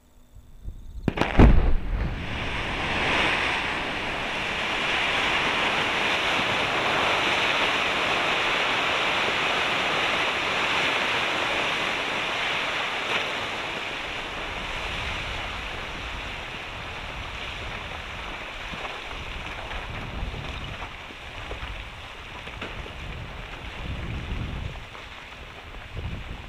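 Quarry rock blast: a sharp bang about a second in, followed by a long rushing of broken rock and gravel spilling down the quarry benches, slowly fading, with low rumbles near the end.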